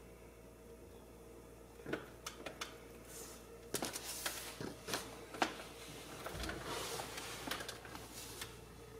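Steady low room hum; about two seconds in, a few sharp clicks begin, followed by a longer stretch of rustling with scattered clicks and knocks that fades near the end.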